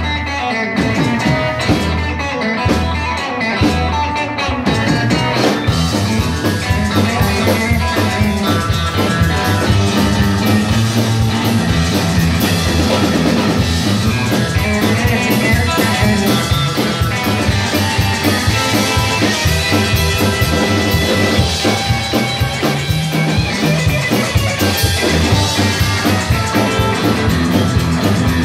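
Live rockabilly band playing, with guitar and drum kit. The sound fills out about five seconds in and then carries on at a steady, driving beat.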